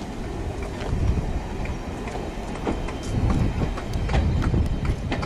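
4-BIG coaches rolling past at low speed. The wheels rumble steadily and click irregularly over the rail joints, growing louder about a second in and again after about three seconds as the coaches pass close by.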